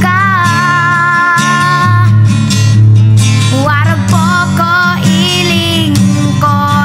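Music: a song with long, held, slightly wavering melody notes over a steady guitar accompaniment.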